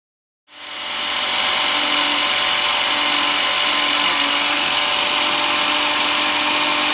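Electric chainsaw chain sharpener's grinding-wheel motor starting up about half a second in, building over a second to a steady high whine and running on.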